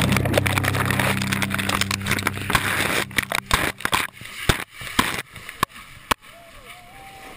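Ice water in a plunge bath splashing and sloshing as bodies go in, with ice chunks clattering. From about three seconds in come a run of sharp knocks, loud against a camera at water level, before it settles to a quieter slosh.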